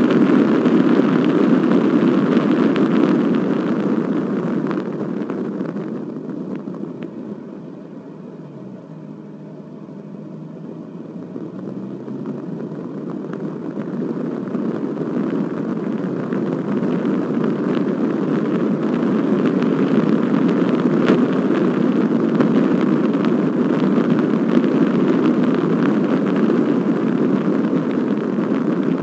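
A car's road and engine noise heard from inside the moving car: a steady rumble that fades for several seconds about a third of the way in, then builds back up and holds.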